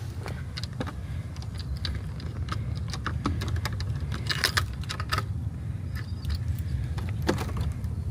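Light clicking and jingling of small metal objects in scattered taps, thickest about four and a half seconds in, over a low steady rumble.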